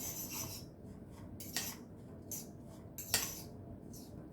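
A fork stirring chopped vegetables and seasoning in a bowl: irregular clinks and scrapes of the fork against the bowl, the loudest about three seconds in.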